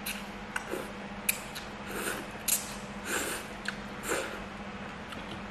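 Instant noodles being slurped up from chopsticks in several short, loud slurps, with a few brief clicks between them.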